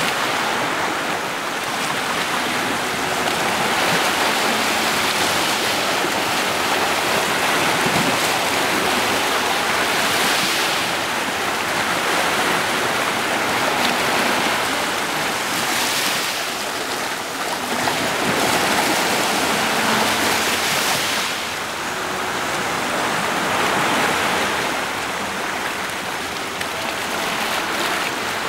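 Ocean surf washing onto a beach: a steady rush that swells every few seconds as waves break.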